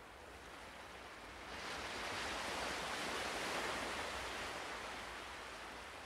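Soft ocean surf washing onto the shore: a wave swells up about a second and a half in, then slowly ebbs away.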